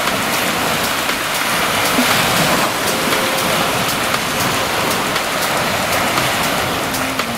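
Small Baltic Sea waves breaking and washing up a sandy shore: a steady rushing hiss.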